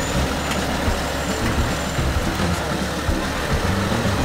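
Off-road truck engine running steadily at low revs as the vehicle crawls slowly over a rough trail.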